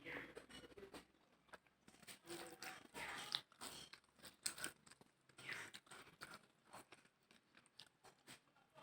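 Faint chewing and mouth sounds of a person eating, with scattered small clicks and brief crunches.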